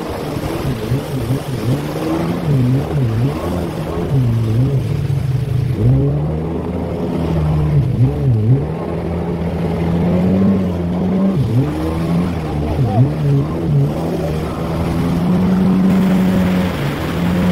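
Jet ski engine running at speed over choppy water, its pitch repeatedly dipping and climbing back, with the rush of water and spray underneath. Near the end it settles into a steadier, higher pitch.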